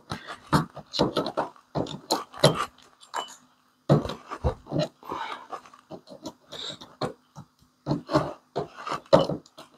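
Pliers gripping and pulling fixed aluminium pin-screws out of the plastic housing of an automatic transfer switch: an irregular run of sharp clicks and short scrapes.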